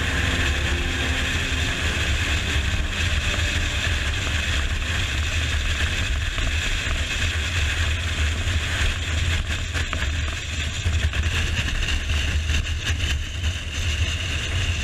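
Steady low rumble and rushing wind of a vehicle running down a runway close behind a landing U-2 spy plane.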